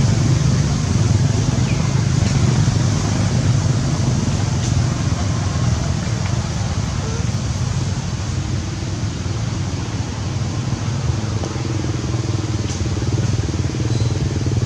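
Steady low engine drone with an even haze of noise over it.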